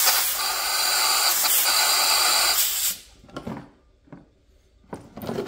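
Compressed-air blow gun hissing loudly as it blasts air into the oil-filled PCV baffle and drain hole of a Chevy LS valve cover, forcing out the trapped oil; the hiss cuts off abruptly about three seconds in. A few short knocks follow as the cover is handled on a plastic case.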